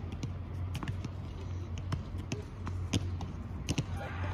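Tennis balls bouncing on a hard court between points: a string of short, irregularly spaced taps over a steady low hum.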